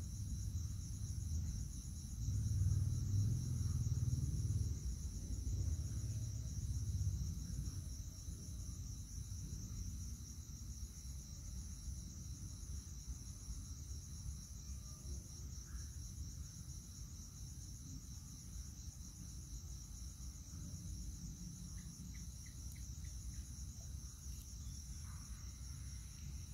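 Night insects trilling steadily, one continuous high trill with an evenly pulsing, higher chirp above it. Under it runs a low rumble, louder over roughly the first eight seconds, then easing off.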